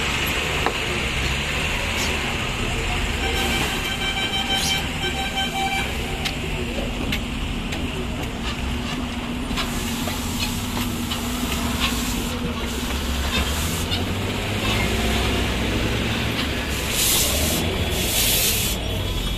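Heavy lorry diesel engines running as the trucks crawl through a traffic jam over a level crossing. A vehicle horn sounds for about two seconds around four seconds in. Near the end come loud bursts of hissing air, and another horn starts.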